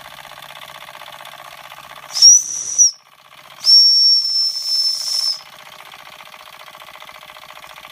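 Doll 338/1 dual-boiler toy steam engine's boiler whistle blown twice, a short high blast about two seconds in and then a longer one of about a second and a half. Underneath, the small steam engine runs with a fast, even beat.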